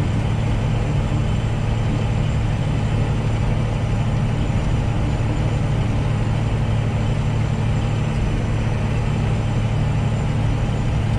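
A semi-truck's engine drones steadily, with road noise heard from inside the cab while driving on the highway.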